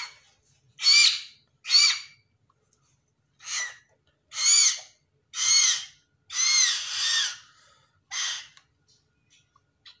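Three-week-old hill myna chick giving harsh begging calls while being hand-fed: seven squawks with short gaps between them, most about half a second long, one about two-thirds of the way through lasting about a second.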